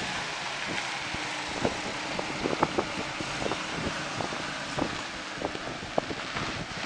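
Wind buffeting the microphone in a steady rushing noise, broken by a dozen or so light, irregular clicks and knocks.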